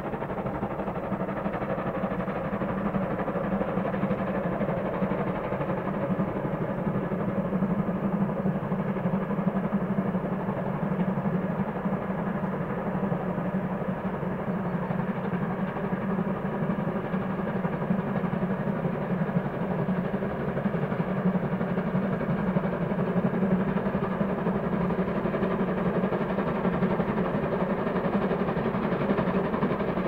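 Distant steam locomotive working a train under steam, its exhaust beats merged into a steady rumble with no separate chuffs.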